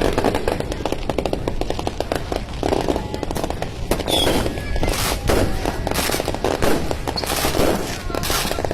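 Fireworks going off: a dense, rapid crackle of many small bangs, with louder clusters of bursts about halfway through and near the end.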